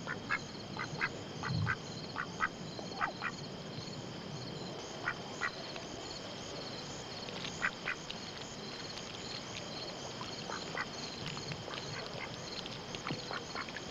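Outdoor field ambience: insects chirping in a high, steady, evenly repeating pattern over a soft hiss, with scattered short, sharp animal calls, more of them in the first few seconds.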